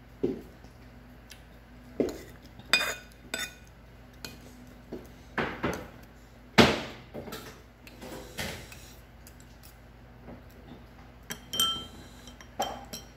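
A metal spoon and chopsticks clinking and scraping against a ceramic bowl of noodle soup during eating, in irregular separate knocks, a few of them with a short ringing tone.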